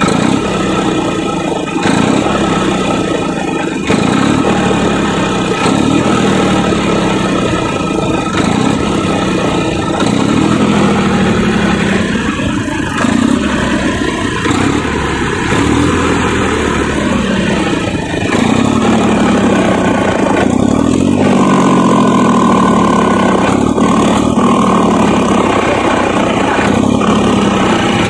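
Tractor engine exhaust blown through a large loudspeaker horn fitted to the silencer pipe, giving a loud, continuous horn-like drone. Its pitch rises and falls again and again as the engine is revved, and a higher steady tone joins in for a few seconds past the middle.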